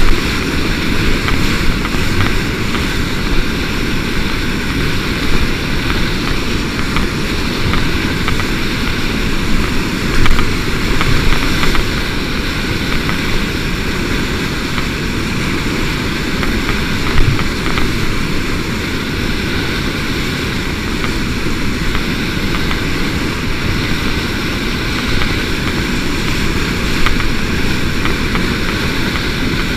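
Fast, flooded creek water rushing and breaking in waves around a whitewater kayak, with splashes of paddle strokes: a steady loud rush with a few brief louder surges.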